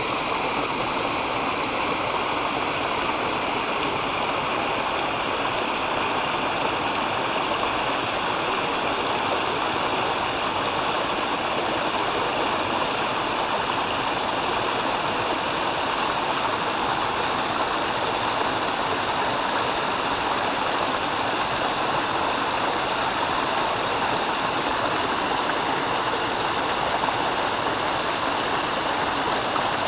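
Steady rushing of running water, even and unbroken, with faint steady high tones above it.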